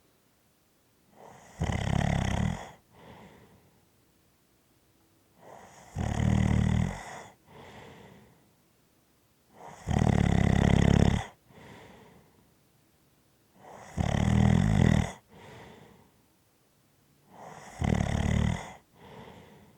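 Rhythmic snoring: five loud, low, buzzing snores about four seconds apart, each followed by a softer breath.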